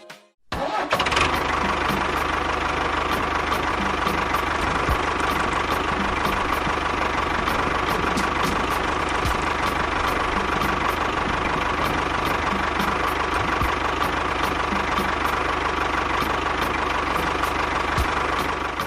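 A motor running steadily, with a constant whine and a regular light ticking. It starts about half a second in and cuts off just at the end.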